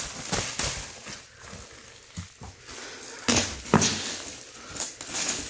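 Metallic foil gift wrap crinkling and rustling as a wrapped package is handled, with two sharp, louder crackles about three and a half seconds in.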